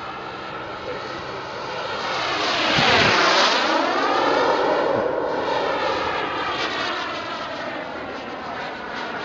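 Turbine engine of a Skymaster Hawk radio-controlled model jet flying past, a jet rush that swells to its loudest about three seconds in and then slowly fades.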